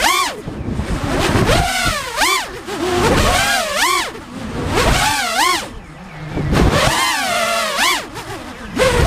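FPV quadcopter's electric motors whining, the pitch swooping up and down about once a second as the throttle is opened and cut, with brief drops in level in between.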